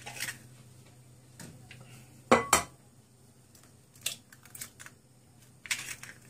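Eggs being knocked against a mixing bowl and cracked into it: a series of sharp taps and clicks, the loudest a double knock about two and a half seconds in.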